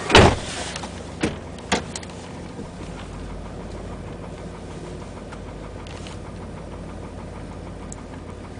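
Chevy Tahoe's 5.3-litre V8 running cold with a steady knocking, which the owner takes for piston slap. A loud thump comes right at the start, followed by two lighter clicks about a second later.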